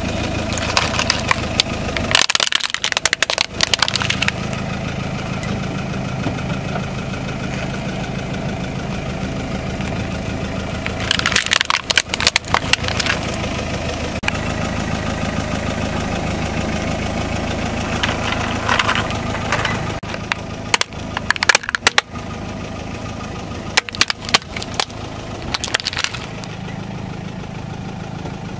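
A car engine idling steadily while a tyre rolls over and crushes objects. About five separate bursts of crunching and cracking break over the hum: one near the start, one around the middle, and three close together later on.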